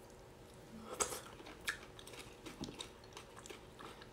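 Quiet eating sounds: soft chewing and wet mouth noises, with a few sharp clicks of a metal spoon against the ceramic dish, the clearest about a second in and again a little later.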